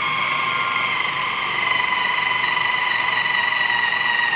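Food processor motor running steadily with a high whine, its blade mixing a thick paste of ground walnuts, sugar, baking soda and eggs.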